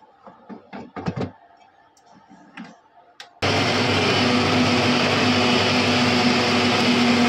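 Plastic lid and steel jar knocking and clicking as they are fitted onto a Bajaj mixer grinder. About three and a half seconds in, the motor starts suddenly and runs at a loud, steady whirr with a steady hum, grinding the cooled onion-tomato masala into a paste.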